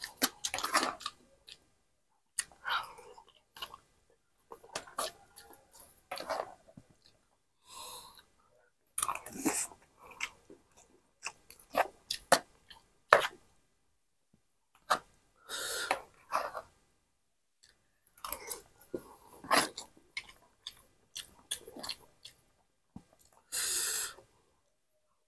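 A person chewing mouthfuls of rice and soupy noodles close to the microphone, in irregular bursts, with sharp clicks of a metal spoon against the plate and a few brief hissing sounds.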